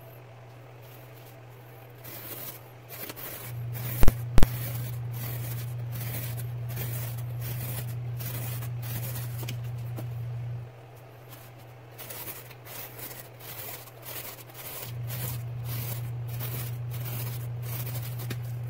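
Folding knife slicing through corrugated cardboard in a quick run of short cutting strokes, paper fibres tearing with each pass. Two sharp loud clicks about four seconds in, and a steady low hum comes and goes underneath.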